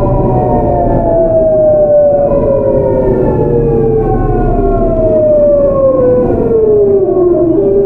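Seoul Metro 8000-series train's GEC Alsthom GTO VVVF traction inverter whining in several tones that fall steadily in pitch, with a step up near the end, over the rumble of the wheels on the rails. The falling pitch is the sign of the train slowing under electric braking.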